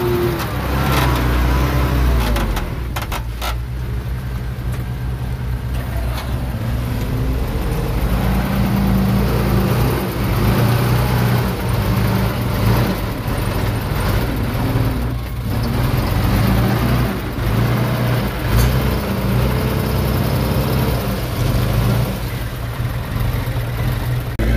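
Diesel engine of heavy earthmoving machinery running, its note rising and falling with load. There are a few sharp clanks about three seconds in.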